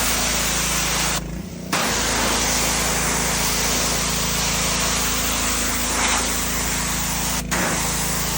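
Mi-T-M gas pressure washer's engine running steadily under the loud hiss of the spray wand. The spray cuts out for about half a second a little over a second in, then resumes, with another very short break near the end.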